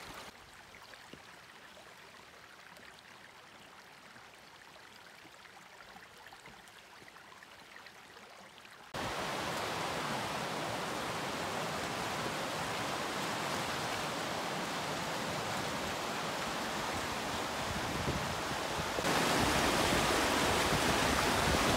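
Fast glacial meltwater river rushing over rocks: a steady, full rush that starts suddenly about nine seconds in and gets louder again near the end. Before it there is only a faint hiss.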